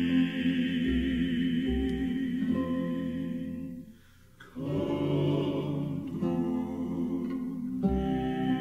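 Male gospel vocal quartet singing long held chords in close harmony. The sound dies away about four seconds in, and after a short gap a new held chord begins.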